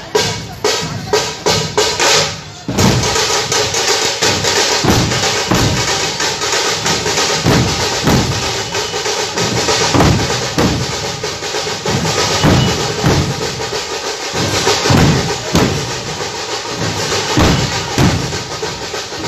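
Music driven by a drum kit with a steady, regular beat. It dips briefly about three seconds in, then comes back fuller.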